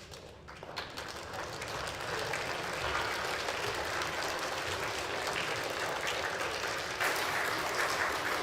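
Audience applauding, the clapping building up about a second in and then holding steady.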